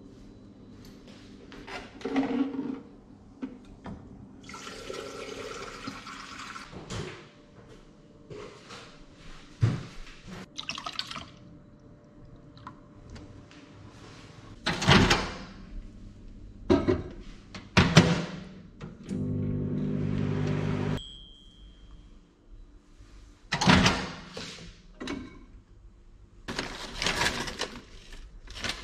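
Kitchen breakfast-making sounds: milk poured into a bowl, several sharp knocks of things set down on a counter, and a steady hum lasting about two seconds. Near the end, dry cereal pillows rattle out of their bag into the bowl. Soft background music runs underneath.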